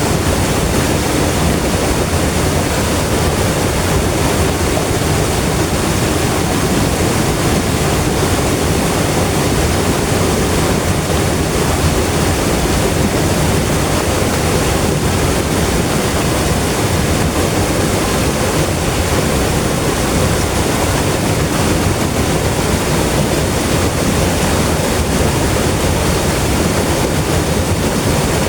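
River water flowing, a steady, full rushing noise.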